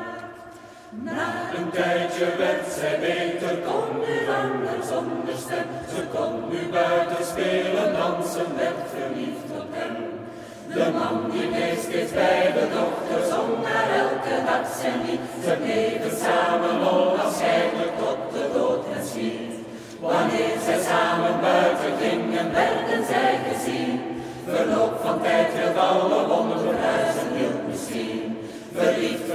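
Mixed choir singing a cappella in phrases, with new entries about a second in and again around ten, twenty and twenty-four seconds in.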